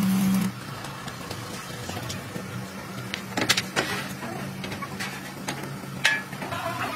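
Steady low mechanical hum, louder for the first half second, with a few sharp metal knocks from steel tubing of a truck body frame being handled, a cluster about three and a half seconds in and one more near six seconds.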